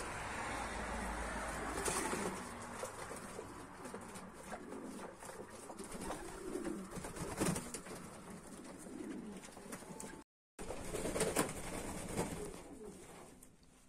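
A flock of domestic pigeons cooing over and over while they bathe, with the splashing of water and flapping of wings in the tray, in several sharp flurries. The sound cuts out for a moment about ten seconds in.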